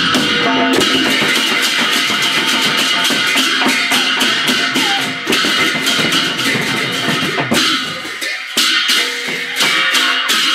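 Live devotional aarati music with fast, dense percussion strikes over a few held tones, thinning briefly about eight seconds in.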